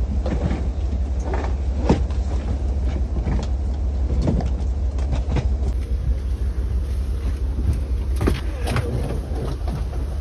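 Steady low rumble inside a standing Amtrak passenger car, with scattered knocks and thuds as suitcases are lifted and pushed into the overhead luggage racks.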